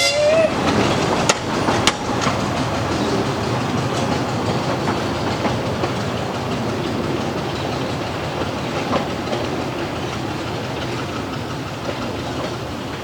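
Narrow-gauge TU2 diesel train rolling past, its wheels clicking over the rail joints with a few sharp clacks in the first two seconds, the rumble slowly fading. A horn blast dies away right at the start.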